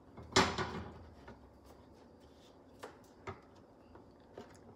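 Quiet room tone with a short rustle about half a second in, followed by a few faint, isolated clicks and taps.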